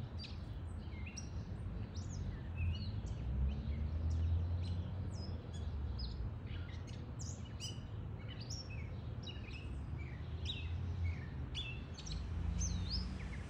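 Male gray catbird singing: a long, rambling run of short, varied chirps, whistles and slurred notes with brief gaps, over a steady low rumble. He is probably singing for a mate.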